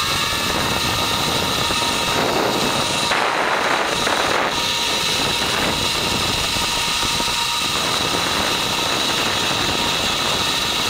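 Steady rush of wind buffeting the microphone during a fast zipline ride, with the trolley running along the steel cable and a steady high whine through it. The wind noise swells briefly a few seconds in.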